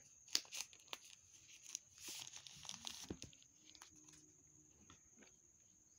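Faint handling of a smartphone's paper and cardboard packaging as the phone is taken out of its box: a few light clicks and taps, then a short paper rustle about two seconds in.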